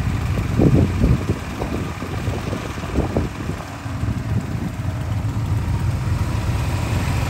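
ATV engine running steadily under way, a low continuous rumble, with a few louder low surges about a second in and again around three seconds.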